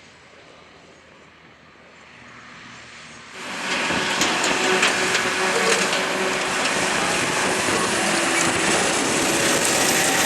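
A quiet stretch of low background noise, then about three seconds in a sudden switch to loud heavy farm machinery running: a dense mechanical din with scattered rattles and clatter.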